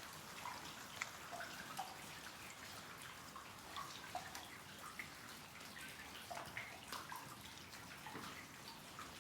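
Soft rain falling steadily on a window, with many separate drops and drips tapping against the glass.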